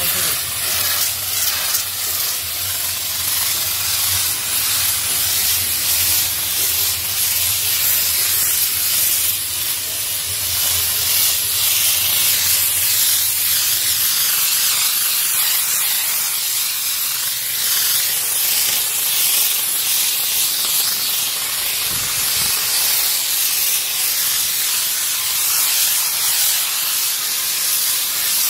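Steam car-wash gun jetting steam onto a car's paint and glass: a steady, loud hiss. A low hum underneath stops about halfway through.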